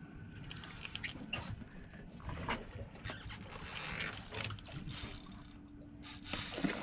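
Water slapping and lapping against the hull of a drifting fishing boat, with scattered small splashes and knocks.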